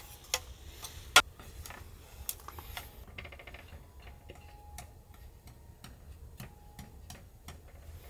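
Scattered light clicks and taps from a plastic collapsible accordion lantern being pulled open and hung on a lantern stand, with a sharper click about a second in and a quick run of small clicks about three seconds in.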